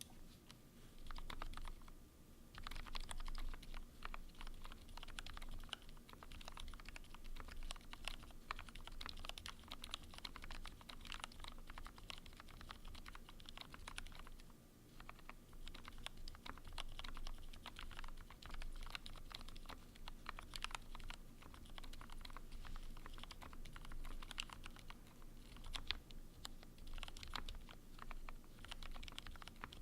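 Continuous typing on an E6-V2 custom mechanical keyboard with C³ Tangerine linear switches lubed with 205g0: a quick, uneven patter of keystrokes that starts about a second in and eases briefly about halfway through.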